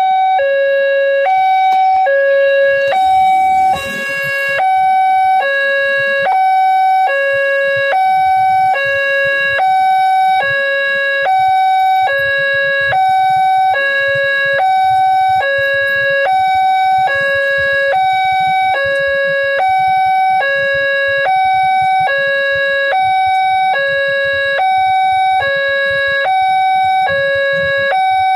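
Railway level-crossing warning alarm sounding its two-tone electronic chime, a low note and a higher note alternating about once a second, signalling that a train is approaching. Faint motorbike traffic rumbles underneath.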